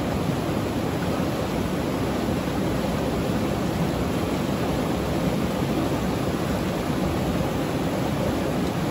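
A river's flowing water rushing steadily past rocks, an even, unbroken sound.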